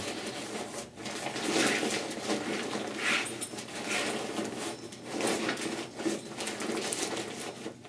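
Fabric of a folded BCA Float 2.0 avalanche airbag and its backpack rustling as the airbag is pressed and tucked into its compartment, in uneven swells.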